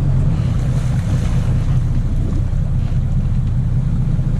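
Steady low rumble of the sportfishing boat's engine running, with wind noise on the microphone.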